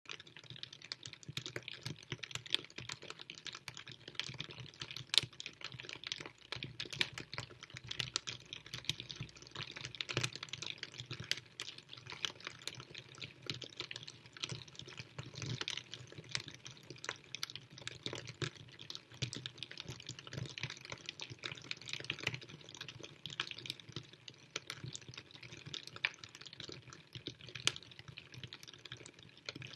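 Rain falling steadily, heard as a dense, irregular ticking of individual drops, with a louder drop now and then.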